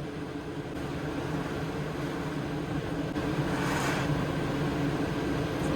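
A steady mechanical rumble with a low hum and a hiss, which swells briefly about two-thirds of the way through.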